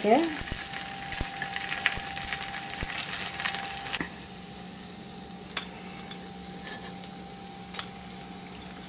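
Kuzhipaniyaram batter balls sizzling and crackling in hot oil in a paniyaram pan. The sizzling stops abruptly about four seconds in, leaving a faint steady hum and a few light clicks.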